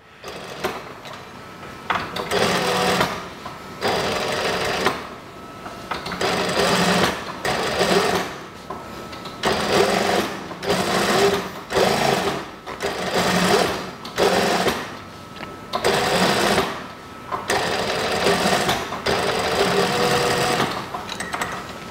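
Brother industrial lockstitch sewing machine stitching in about a dozen short runs of one to two seconds, stopping and starting as the fabric is repositioned. It is understitching the seam allowance onto the neck facing.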